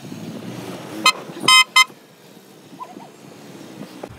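Car horn tooting three times in quick succession, a short toot, a longer one, then a short one, about a second and a half in. Under it runs the low rumble of cars rolling slowly.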